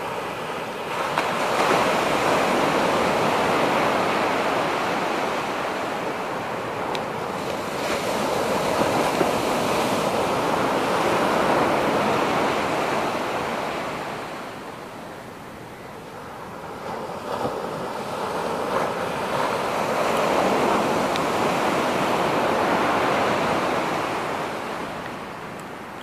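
Sea surf breaking and washing up a sandy beach: a steady rush that swells, dies down for a few seconds past the middle, then swells again and fades near the end.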